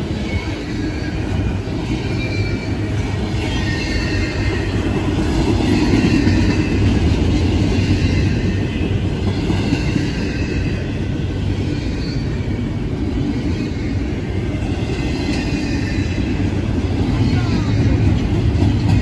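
Long double-stack intermodal freight train rolling past at speed: a steady rumble of wheels on rail, with faint high wheel squeals drifting in and out.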